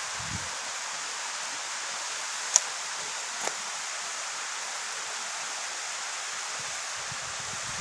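Steady, even rush of a river's running water. A sharp click comes about two and a half seconds in, and a fainter one about a second later.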